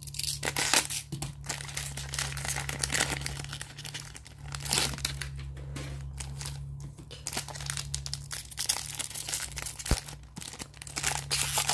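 Plastic foil wrapper of a Panini Mosaic football card pack crinkling in the hands as it is handled and torn open, in irregular crackling bursts.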